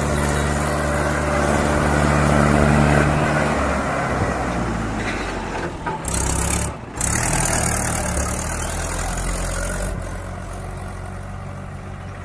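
A vehicle engine running steadily. Its pitch drops about three and a half seconds in, it dips briefly past the middle, and it fades toward the end.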